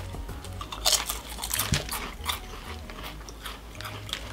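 Two people crunching and chewing thin, regular-cut Lay's Crispy Taco potato chips: an irregular run of crisp crunches, loudest about a second in and again around two seconds in.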